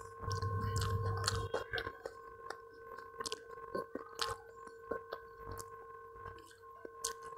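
Mouth-eating sounds of chewing, with fingers mixing rice on a steel plate: many small scattered clicks and taps. A faint steady hum runs underneath.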